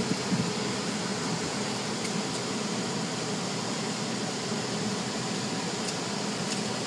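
Steady whooshing machine noise of a car wash tunnel, heard muffled from inside a car.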